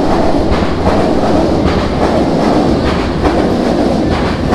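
A train crossing the elevated tracks directly overhead, heard from the shop beneath: a loud, steady rumble of wheels on rail with clacks over the rail joints now and then.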